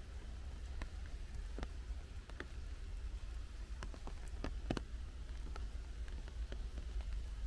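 Rain dripping in a forest: water drops falling from the leaves make sharp, irregular taps, a double tap a little before halfway the loudest, over a steady low rumble.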